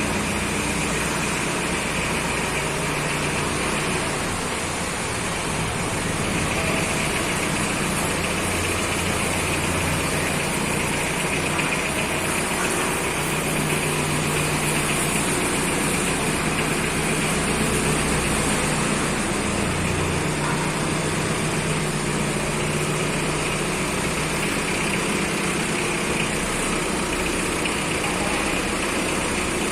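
Forklift engine running steadily, its speed shifting slightly now and then.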